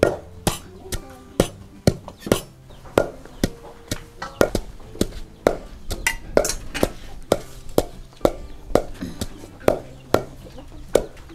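A knife chopping food on a cutting board in a steady run of sharp strikes, about two a second.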